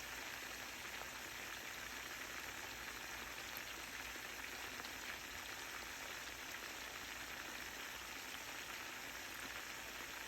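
Food frying in a pan: a faint, steady sizzle.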